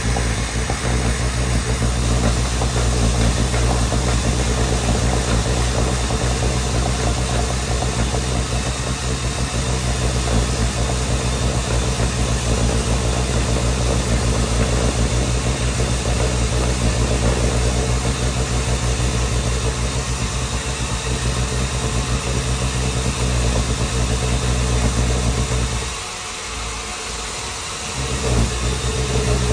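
Electric drill running steadily under load, with a low motor hum and grinding noise. It eases off for a couple of seconds near the end, then picks up again.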